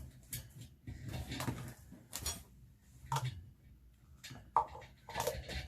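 Scattered metallic clinks and knocks of hand tools against a wheel during a manual tyre change, with a few brief ringing taps.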